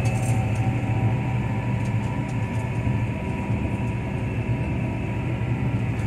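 Tractor engine running at a steady speed under way, a constant low hum heard from inside the cab.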